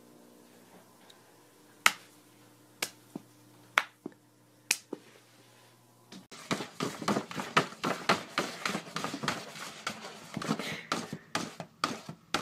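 Sharp snaps in a small room: a handful spaced about a second apart, then from about halfway through a fast, dense run of snaps and clicks.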